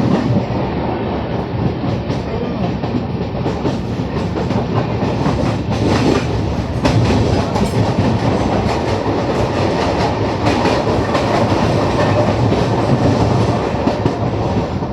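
LHB passenger coach running at speed on the rails, a steady loud rumble of steel wheels on track, with a run of sharp clicks about six to eight seconds in.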